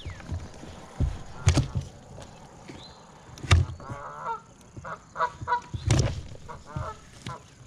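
Geese honking in a run of short repeated calls through the second half, with a few sharp knocks standing out louder, about one every two seconds.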